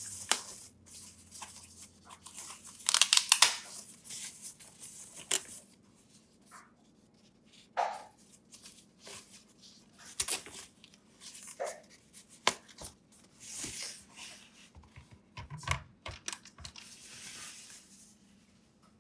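Protective wrapping sheet rustling and crinkling as it is pulled off by hand, in irregular bursts. The loudest burst comes about three seconds in, with a few light knocks of handling along the way.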